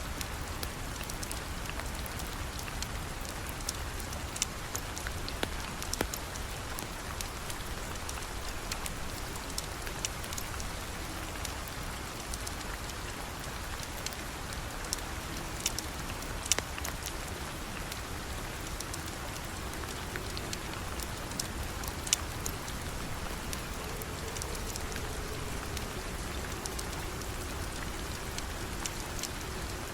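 Steady rain falling, with scattered sharp ticks and pops throughout.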